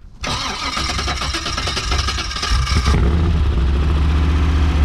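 A car engine running loud and hissy for a couple of seconds, then cut off abruptly, giving way to a deep, steady engine idle.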